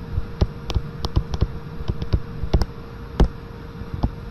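Stylus tapping and clicking on a tablet screen while handwriting a word, a string of irregular sharp ticks, the loudest about three seconds in, over a faint steady hum.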